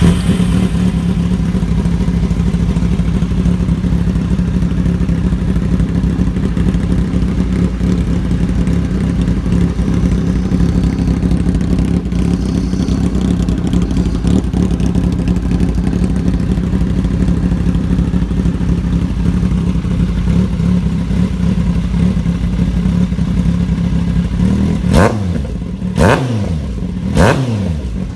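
Kawasaki Z800's inline-four engine running through a Racefit GP slip-on exhaust, holding a steady note. About 25 seconds in, the throttle is blipped three times in quick succession, each rev rising sharply and falling back.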